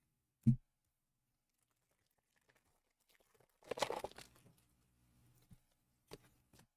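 A trading-card booster pack's foil wrapper being torn open and crinkled, a short rustle about four seconds in. A soft low knock comes about half a second in, and two small clicks near the end.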